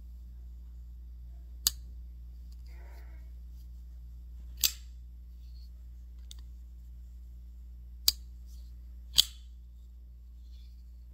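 Vero Engineering Synapse Gen 2 folding knife being flipped open on its bearings and closed: four sharp metallic clicks of the blade snapping into lock and leaving its detent, spread out with the last two about a second apart, and a fainter click between.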